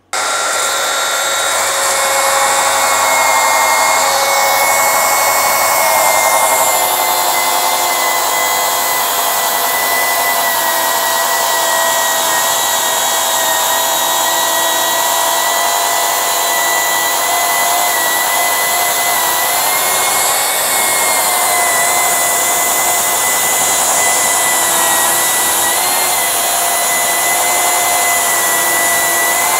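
Milwaukee M18 Fuel cordless track saw ripping 8/4 walnut at full cut depth. It gives a steady, loud high whine under load, with the pitch dipping briefly a few times as the blade works through the hardwood.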